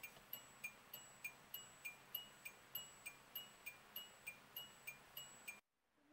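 A car's electronic dashboard tick-tock signal, about three ticks a second alternating between two pitches, that cuts off suddenly near the end.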